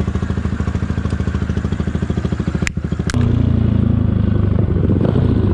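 Motorcycle engine running with an even pulsing beat; two sharp clicks come just before three seconds in, and then the engine gets louder and steadier as the bike gets going.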